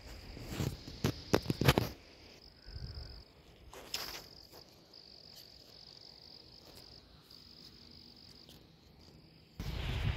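An insect's high, steady trill, broken off now and then. A few sharp clicks come in the first two seconds, and near the end a rush of wind noise on the microphone covers it.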